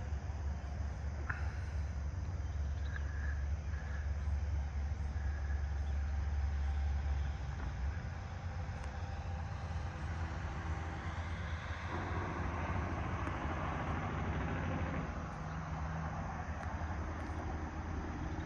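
Rural outdoor ambience with a low rumble that drops away about seven seconds in. Later a vehicle passes on a road, its tyre hiss swelling and then fading.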